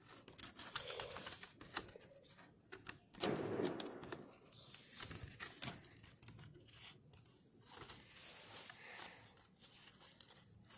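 A sheet of A4 paper rustling and crinkling in the hands as it is rolled into a cylinder and its glued edge pressed shut, in faint irregular rustles and small clicks, loudest a little over three seconds in.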